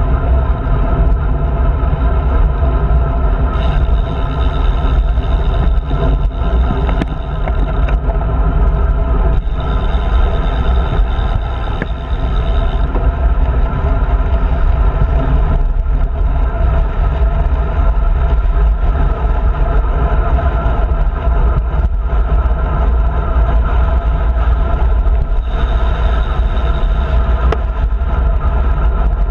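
Steady rush of wind over the microphone of a camera mounted on a moving road bike's handlebars, with a heavy low rumble throughout.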